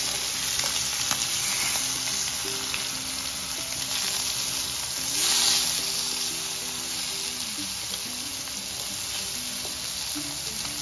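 Masala-coated trevally fish pieces shallow-frying in oil in a nonstick pan, sizzling steadily, with light scrapes and taps of a wooden spatula turning them. The sizzle swells louder for a moment about halfway through.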